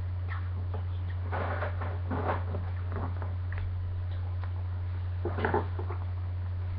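Faint scrapes and light clicks of a Fang Leone Beyblade's parts being handled in the hands, coming in a few small clusters, over a steady low hum.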